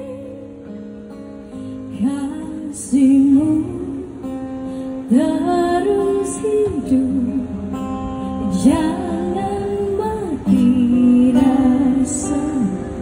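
A woman singing live into a microphone, her melody sliding between notes and held with vibrato, over acoustic guitar accompaniment. Her phrases come in louder about two, three and five seconds in.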